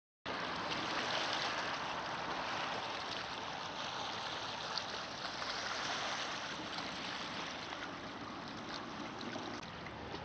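Small waves lapping and washing over a pebbly lakeshore, a steady watery rush with a few faint ticks of stones.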